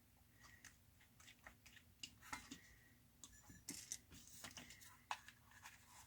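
Faint, scattered clicks and light scrapes of small parts and a plastic tool housing being handled during disassembly.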